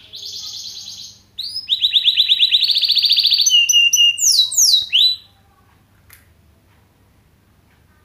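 A Mozken, a hybrid of the Mozambique (yellow-fronted) canary and the domestic canary, practising canary-style song. It sings a loud burst of rapid trills followed by a string of quick falling whistles, which stops about five seconds in.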